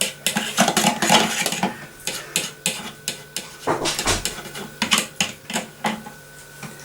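Utensil clinking and scraping against a bowl while breadcrumbs are stirred: quick, irregular clicks, busiest in the first couple of seconds, then sparser and stopping near the end.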